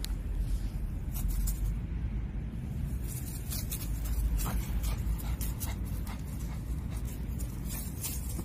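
Dry fallen leaves and grass crackling and rustling underfoot in short irregular crunches, over a steady low rumble.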